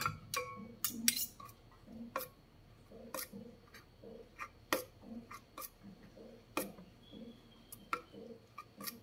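Metal spoon and fork stirring thin peanut sauce in a stainless steel bowl, with irregular clinks and scrapes of the cutlery against the bowl, roughly one or two a second.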